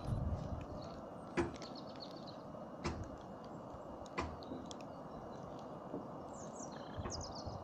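Footsteps on a dirt track: three sharp steps about a second and a half apart, over a steady outdoor hiss. Small birds chirp briefly, in short falling notes, once early on and twice near the end.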